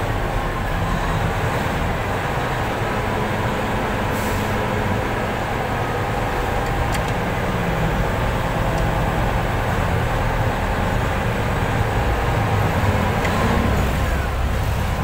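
Steady low rumble of a heavy vehicle's engine idling.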